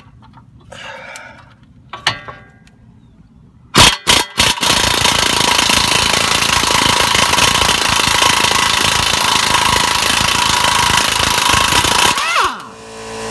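Compact half-inch-drive AIRCAT 1055-TH air impact wrench on a suspension joint bolt. About four seconds in the trigger is blipped a few times, then the wrench hammers continuously for about eight seconds and stops near the end.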